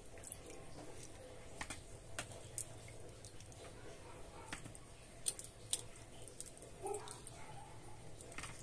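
Faint scattered clicks of kitchen tongs and soft wet squishes and drips as marinated chicken drumsticks are lifted out of their soaking liquid.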